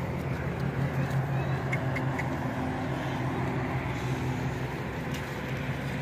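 A steady low motor hum with a noisy shuffle, over a flock of sheep moving along a dirt track.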